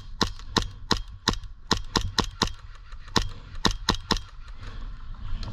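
Airsoft gas blowback pistol (Echo1 TAP on HPA) firing a string of about a dozen quick, sharp shots at an uneven pace of two to three a second, stopping about four seconds in.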